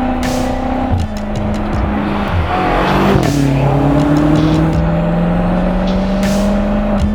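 BMW M5 (F90) twin-turbo V8 under hard acceleration, its pitch dropping at upshifts about a second in and again about three seconds in, then climbing slowly, with a brief rush of noise around the second shift.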